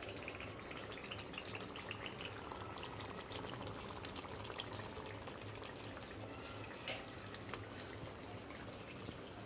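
Faint sizzling of oily meat curry in a hot kadhai: a steady low hiss scattered with small crackles and pops, with one slightly louder pop about seven seconds in.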